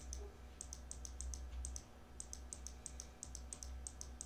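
Computer mouse button clicking rapidly and faintly, about four or five short clicks a second, often in quick pairs, over a low steady hum.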